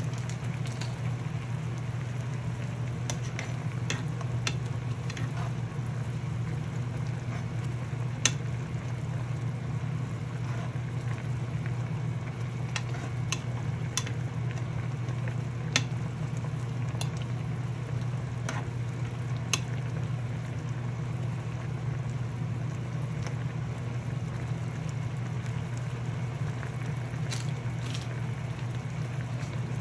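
Ramen cooking: a steady cooking noise over a low hum, broken by scattered sharp clicks, most of them in the first twenty seconds.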